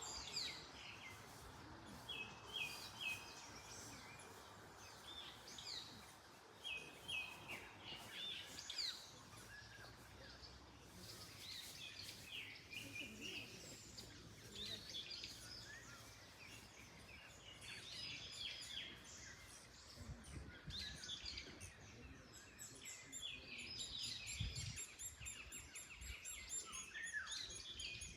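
Several small birds chirping and singing in short, overlapping calls and trills, over a soft hiss of wind in the trees that is stronger in the first few seconds.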